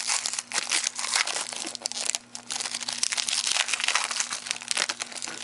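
Foil wrapper of a 2012 Certified football card pack being torn open and crinkled by hand: a dense crackle, with a brief lull about two seconds in.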